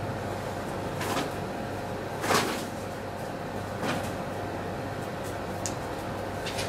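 A few short rustling swishes of a paper bag being handled, the loudest a little over two seconds in, with a couple of faint ticks near the end, over a steady machine hum.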